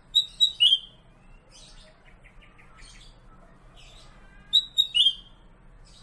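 Kutilang emas (black-crested bulbul, Pycnonotus melanicterus) singing: a short phrase of three loud, clear whistled notes, the last dropping in pitch, given near the start and repeated about four and a half seconds in, with fainter twittering notes between.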